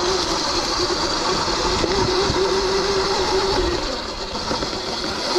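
Sur-Ron X electric dirt bike under way: a steady electric motor and drivetrain whine over rough tyre, brush and wind noise. The whine drops in pitch and fades about four seconds in as the bike eases off.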